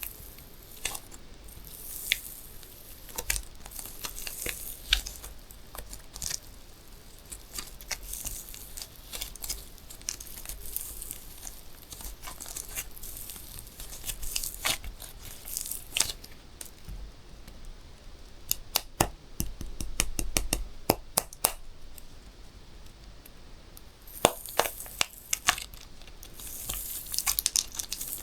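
Balloons being popped: sharp pops scattered through, with a quick run of many small pops about two-thirds of the way in, and crinkly rustling of the balloon rubber between them.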